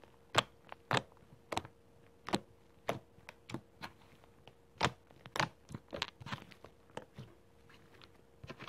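Fluffy slime being poked and squeezed by fingers, giving irregular sharp pops and clicks as air pockets in it burst, about two a second, with a quieter stretch near the end.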